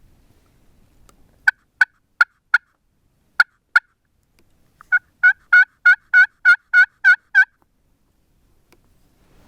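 Turkey calling: six short, sharp clucks, then a quick run of about nine yelps at roughly three a second that stops abruptly.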